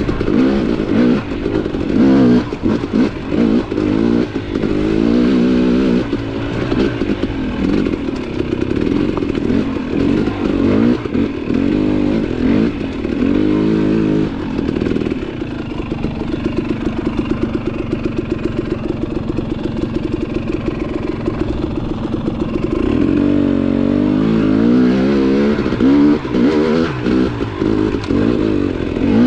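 KTM dirt bike engine on throttle on a rocky trail. It revs up and down again and again for the first half, holds a steady pitch for several seconds past the middle, then revs up again near the end.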